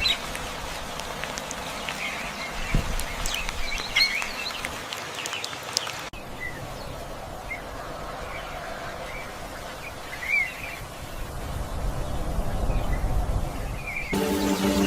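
Birds chirping and calling in short, scattered notes over a steady outdoor background hiss. The background changes abruptly about six seconds in, and music comes in near the end.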